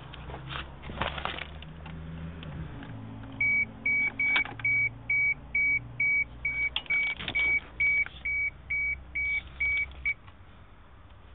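A single-pitched electronic beep repeats about twice a second for roughly seven seconds, then stops. A few clicks and knocks come before it and during it, over a low steady hum.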